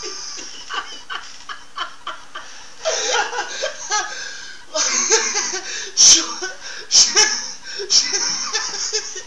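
People laughing, building up and getting louder about halfway through. A few sharp knocks or claps come through the laughter about two-thirds of the way in.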